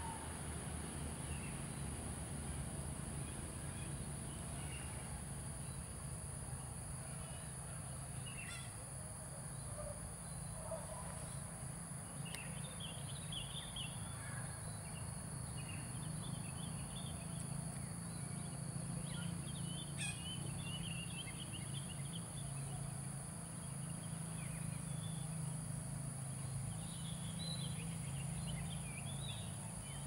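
Plaintive cuckoo calling far off, series of short high whistled notes in several bouts, among other distant birdsong, over a steady low hum.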